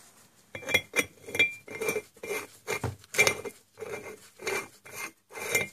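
Threaded metal cover being screwed by hand into the bore of a lathe headstock housing, metal on metal: a run of short clinks with a ringing note, about two or three a second, starting about half a second in.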